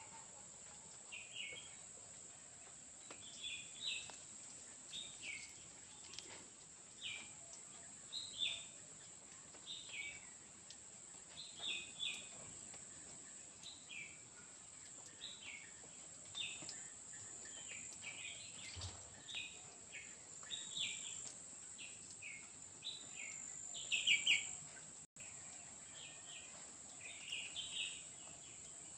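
Forest ambience: a steady high-pitched insect drone, with a bird repeating short, high, falling chirps about once a second, loudest a little before the end.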